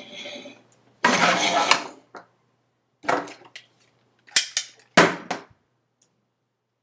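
Toy revolver being handled: a metallic rattle of about a second, a few sharp clicks, then a loud sharp crack about five seconds in.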